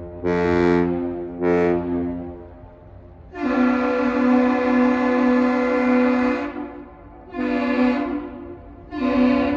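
Deep ship's horn of the lake freighter John D. Leitch sounding two short blasts, completing a long-and-two-short salute. Then a higher-pitched horn answers with one long and two short blasts.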